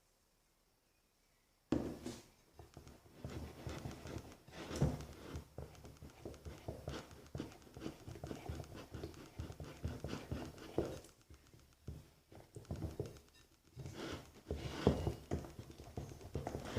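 A spoon stirring sticky glue slime in a bowl: irregular wet squelching and clicking of the spoon against the bowl, starting after a second or two of near silence and easing off briefly about two-thirds through. The slime is still being worked to activate and has not yet set.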